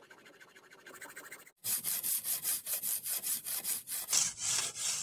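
A bare hacksaw blade, held by hand with no frame, sawing a slot into a small wooden block clamped in a bench vise. Quick back-and-forth strokes, fainter at first, then after a brief break loud and fast at about five strokes a second.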